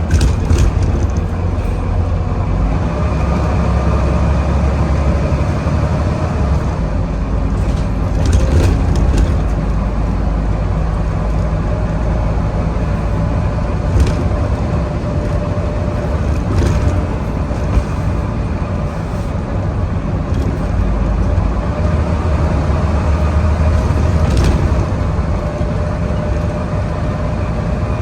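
Volvo B9TL double-decker bus's six-cylinder diesel running under hard acceleration, heard from on board, with the steady whine enthusiasts call the 'hoover' over the engine's low rumble. A few short knocks and rattles from the bus body come through.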